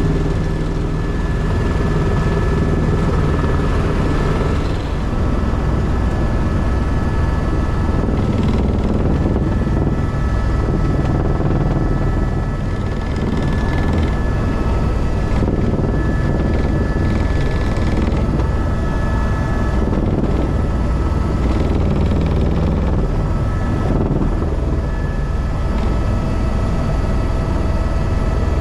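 Tour helicopter in flight, heard from inside the cabin: a steady, heavy rotor and engine drone with a thin, steady high whine over it.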